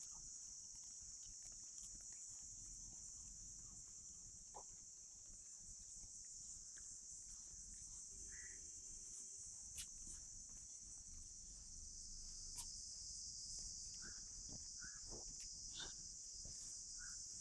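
Steady, high-pitched insect chorus, crickets or similar, running on without a break, with a few faint clicks and a couple of short chirps over it.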